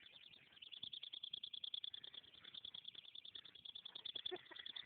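Small buzzing gadget on a dog's collar giving a faint, high-pitched buzz that pulses rapidly and evenly.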